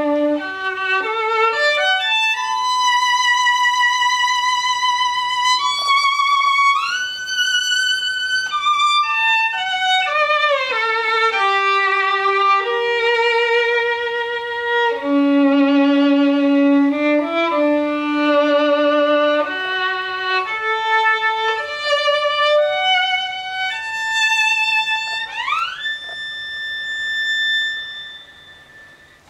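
Solo violin playing a slow melody of held notes with vibrato. Near the end it slides up to a long high note that fades away.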